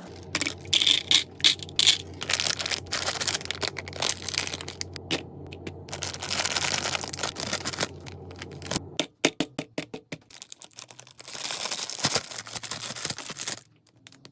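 Rapid crinkling, crackling and tearing of plastic packaging being handled, with many sharp clicks. It breaks off about nine seconds in and starts again a couple of seconds later.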